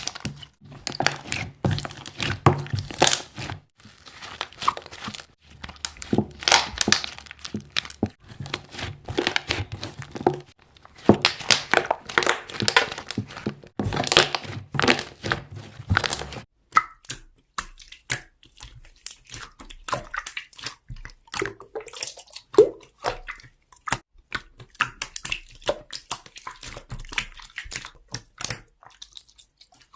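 Slime being squished and pressed by hand, with rapid crackling and popping of trapped air bubbles. About sixteen seconds in the crackling thins out to sparser, separate pops and clicks.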